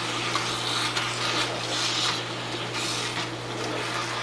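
Metal tongs stirring and turning chicken, onions and bell peppers in a hot skillet. The food sizzles, and the tongs rub and scrape against the pan in repeated strokes.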